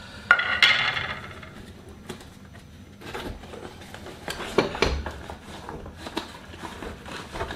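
Metal camping cookset clinking and rattling in its fabric pouch as it is handled. A ringing clink comes about a third of a second in, then a few scattered knocks and clicks, the strongest near the middle.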